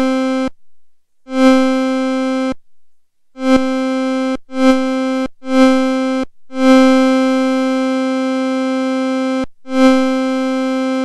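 VCV Rack virtual modular synthesizer playing the same note seven times from key presses. Each note swells quickly to a peak, falls back to a steady lower level as the decay stage brings it to the sustain level, and cuts off when the key is released. Most notes are short, and one in the middle is held for about three seconds.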